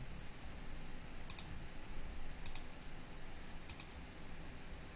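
Computer mouse clicks: a quick pair about a second and a half in, another near two and a half seconds, and a third pair near four seconds, over a faint low hum.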